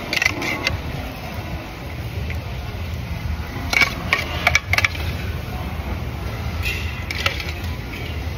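Steady low rumble with three short clusters of sharp clinks of metal utensils against dishes: at the start, about four seconds in, and about seven seconds in.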